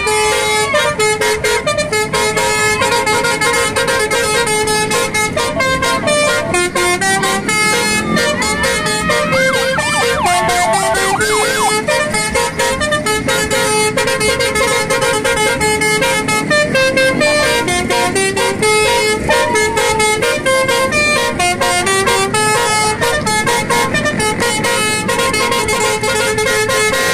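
Basuri musical car horn playing a tune as a string of stepping horn tones over a fast, steady beat, with a few sliding tones about eight to eleven seconds in.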